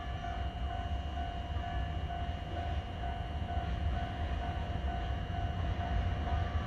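Electric freight locomotive hauling a train of tank wagons, approaching at low speed: a steady low rumble, with a fainter high tone pulsing on and off in the background.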